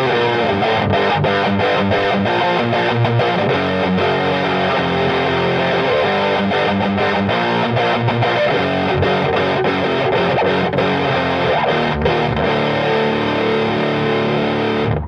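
Electric guitar played with a heavily distorted, overdriven lead tone from the EGO TM2 OD100 Lead setting. Sustained notes and chords carry on continuously and cut off abruptly at the very end.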